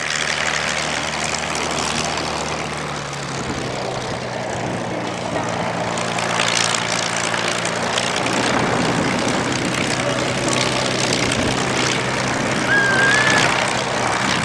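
Propeller-driven airplane engines running in flight, a steady drone with a low engine hum that grows noisier partway through. A short high whistling tone sounds near the end.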